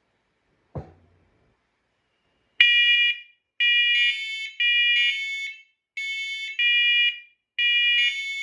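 A single knock about a second in, then the First Alert SCO500 and SA500 smoke alarms, wirelessly interconnected and in test, sounding their horns together. Loud repeated high beeps come from the two units slightly out of step, so the beeps overlap.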